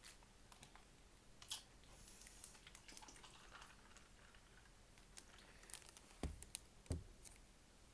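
Faint scattered clicks and crinkles of a hard-to-open food container being worked open by hand, with two dull thumps near the end.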